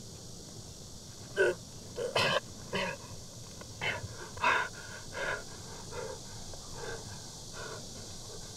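A man gasping and panting in short, hard breaths, about ten of them, loudest at first and growing weaker.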